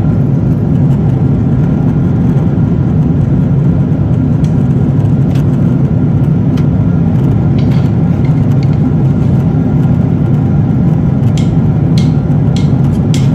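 Boeing 777-300 cabin noise in cruise: a loud, steady low drone of engines and airflow heard from inside the cabin, with a few faint clicks near the end.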